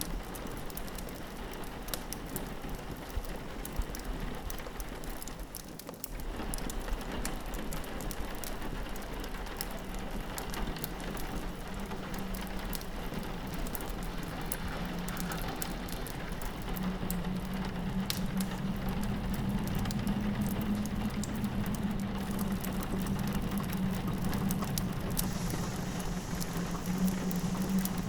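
Steady rain pattering on a window, layered with a fireplace's crackles and pops. Under them runs a low howl of wind that grows stronger about two thirds of the way through.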